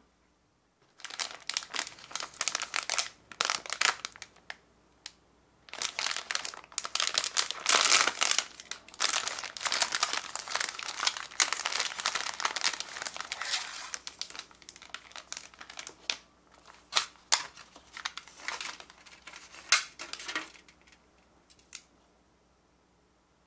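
Plastic snack wrapper crinkling as it is opened and the tart is pulled out. The crinkling is dense, with a short pause about five seconds in and the loudest stretch around eight seconds, then it thins to scattered crinkles that stop near the end.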